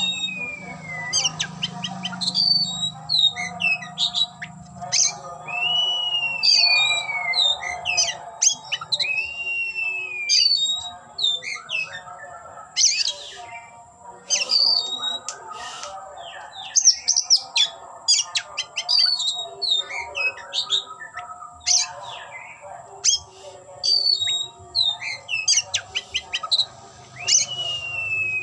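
Oriental magpie-robin (kacer) singing a long, varied song: clear whistled notes that glide downward, mixed with quick chattering and clicking notes in rapid runs.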